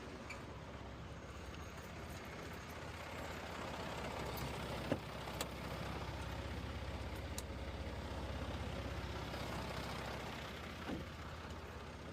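Concrete mixer truck's diesel engine running steadily, getting somewhat louder through the middle. A few sharp clicks or knocks come about five seconds in and again near the end.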